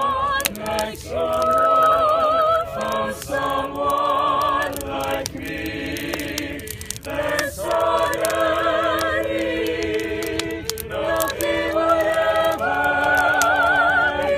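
Several voices singing unaccompanied in harmony, with held, wavering notes and short breaks between phrases. Sharp crackles from the burning wood fire come through over the singing.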